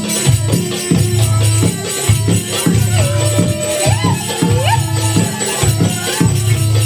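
Middle Eastern-style dance music with a steady, pulsing bass beat. A wavering, gliding melody line enters about halfway through and ends with an upward swoop.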